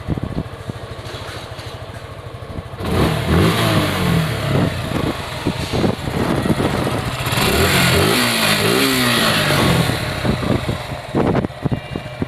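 Suzuki Gixxer 155 FI single-cylinder engine idling, then revved several times from about three seconds in, its pitch rising and falling, before settling back toward idle near the end. Its valve (tappet) clearance has just been reset to the factory figure to cure a rattling engine noise.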